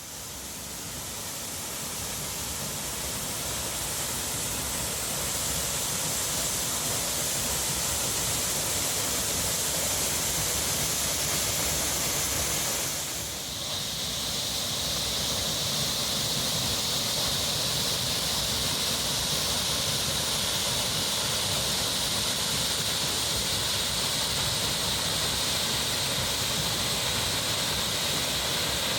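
Manuaba waterfall: a steady rush of falling water, swelling over the first few seconds, with a brief dip a little before halfway.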